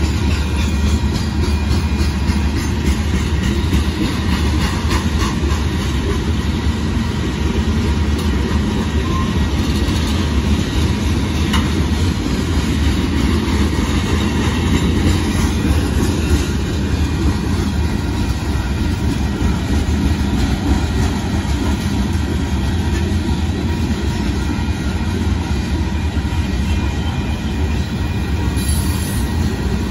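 Freight cars of a loaded Union Pacific limestone train rolling past steadily, steel wheels on the rails making a continuous heavy rumble.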